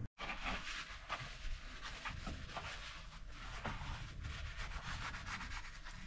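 Repeated scraping and rubbing strokes at an irregular pace, a dozen or so over several seconds, with a faint low rumble beneath.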